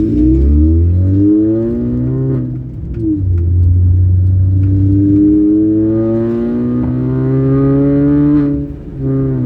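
Sprintex-supercharged 2004 Mini Cooper S four-cylinder engine accelerating under load, its revs rising through a gear. It drops briefly for a gear change about two and a half seconds in and again near the end, then climbs again.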